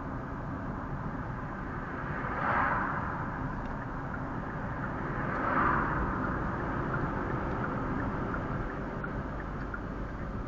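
Steady road and engine noise of a car driving at a constant speed, heard from inside the cabin. There are two brief swells of a higher hiss about three seconds apart.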